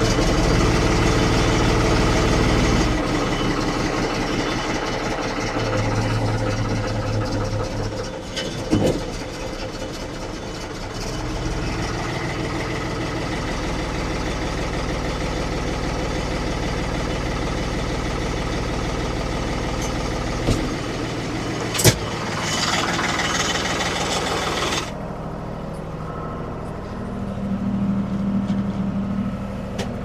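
Ford 550 backhoe's diesel engine running just after start-up, its note shifting a few times, with a sharp clank about two-thirds of the way through.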